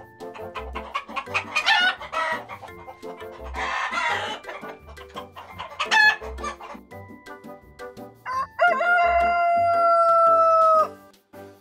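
Chickens clucking in harsh bursts, then a rooster crowing once about eight seconds in, its call ending in a long held note that cuts off sharply. Faint background music runs underneath.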